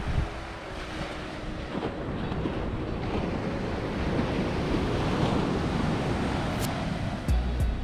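Surf breaking and washing up a sandy beach, with wind rumbling on the microphone. A few sharp clicks and a low thump come near the end.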